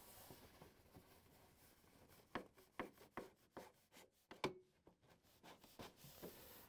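Faint clicks, taps and scraping of a plastic refrigerator evaporator drip pan being slid and worked into place between its brackets, with a quick run of light clicks in the middle.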